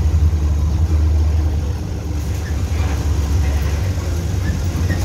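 City bus engine running steadily with a low rumble, heard from inside the bus cabin while it drives along the road.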